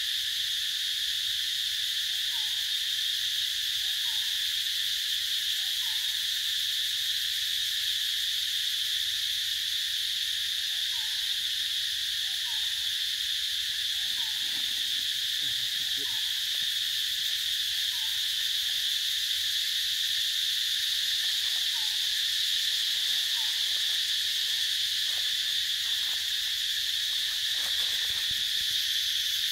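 Steady, high-pitched drone of forest insects, with a faint short falling call repeated about every two seconds beneath it.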